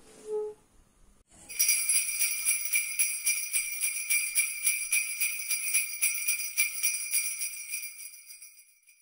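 Sleigh bells jingling in a steady shaken rhythm, about four or five shakes a second, starting about a second and a half in and fading away near the end.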